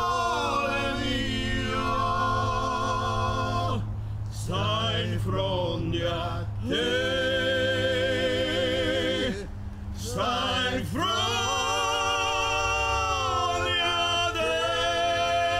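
Male voices singing long held notes with vibrato, phrase after phrase with short breaths between, over a steady low accompaniment.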